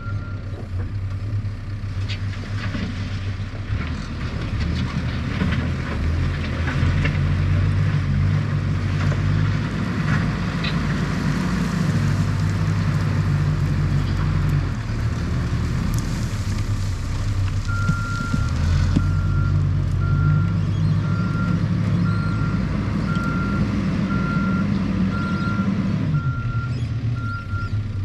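Cat 420F backhoe loader's diesel engine working under load, revving up and down repeatedly as the machine digs and pulls. From a little past halfway, its backup alarm beeps steadily, about once every second and a half, as it reverses.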